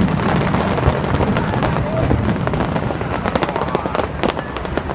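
Fireworks display: many sharp cracks and bangs in quick succession over a continuous low rumble of booms, with crowd voices in between.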